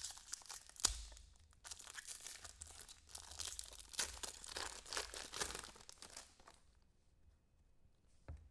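Foil trading-card pack being torn open, the wrapper crinkling and cards rustling as they are handled, with a few sharp snaps; the crinkling stops about two thirds of the way through and the rest is quiet.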